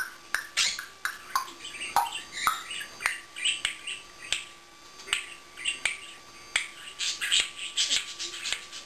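African grey parrot making a string of sharp clicks mixed with short chirps and whistles.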